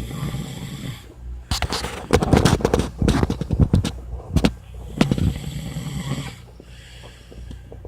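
A person snoring, with a rapid rattling flutter. The loudest, longest snore comes about one and a half to four and a half seconds in, and a softer one follows about five seconds in.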